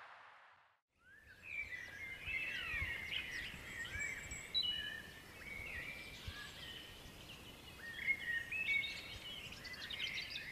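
A steady hiss fades out, then about a second in birdsong begins: several small birds chirping and whistling in quick, overlapping phrases.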